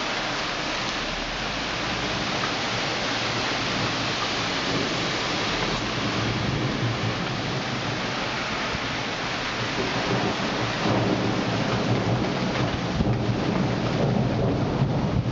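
Thunderstorm rain falling steadily, with thunder rumbling low and building through the second half.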